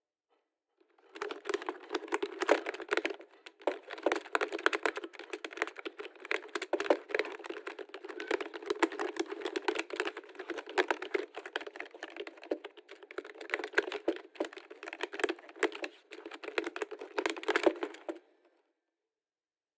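Fast, continuous typing on a computer keyboard, many keystrokes a second. It starts about a second in and stops shortly before the end, with a brief pause about three seconds in.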